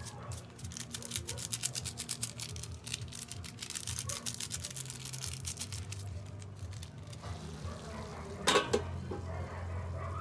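Cabbage and ground meat frying in a wok, a dense sizzling crackle that thins out after about six seconds, over a steady low hum. About eight and a half seconds in there is one sharp metal clank with a short ring, as the pan lid goes on.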